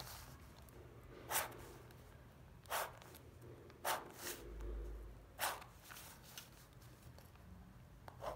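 Ballpoint pen and clear plastic ruler on a sheet of paper: four short scraping strokes, each about a quarter of a second, spaced a second or so apart, as lines are ruled on the page.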